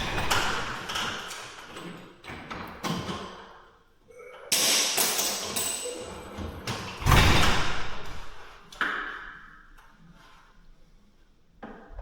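Clanks, rattles and thumps of a garage door and its rollers being worked in the steel tracks, with a heavy thump about seven seconds in.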